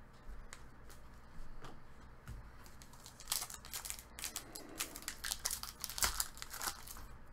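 Foil wrapper of an Upper Deck retail hockey card pack crinkling and tearing as it is opened by hand. It is quiet at first, then a run of sharp crackles starts about three seconds in.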